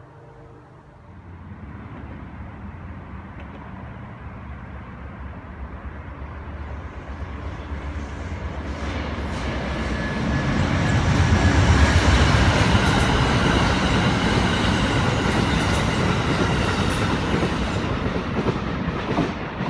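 Amtrak passenger train approaching and passing close by: a low rumble starts about a second in and builds to its loudest around the middle, then the cars keep rolling past.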